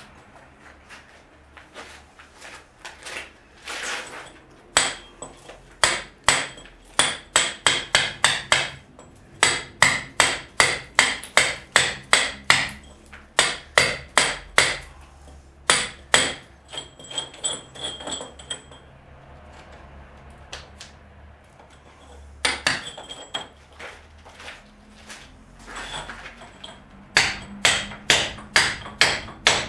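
Hand hammer chipping at old brickwork in quick runs of about two to three blows a second, each blow with a faint metallic ring. A pause of a few seconds comes after the middle.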